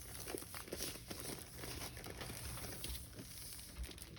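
Packaging of a diamond painting kit crinkling and rustling as it is handled, a continuous run of small irregular crackles.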